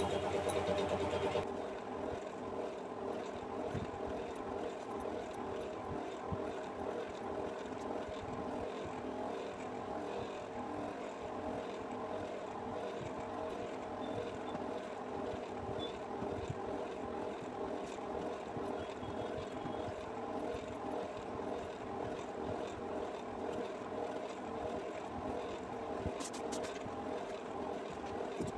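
A steady mechanical drone with a few held tones and no change in pitch, with faint knocks and rustles of handling now and then.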